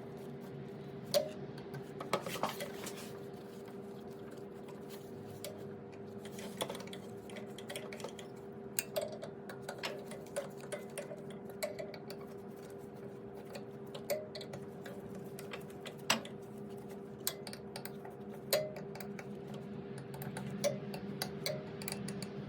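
Small metal clicks and taps of an Allen key turning the blade-clamp screws on a Wen two-blade thickness planer's cutterhead, irregular, every second or two, over a steady low hum.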